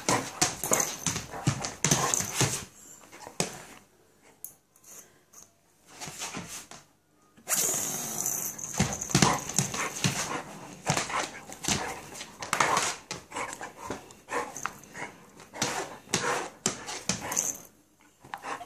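Basset hound playing with a small plastic spinning top on a hard floor: a busy run of nail clicks, scrabbles and knocks as she paws at it and shakes her head. There is a quiet spell of about three seconds near the middle.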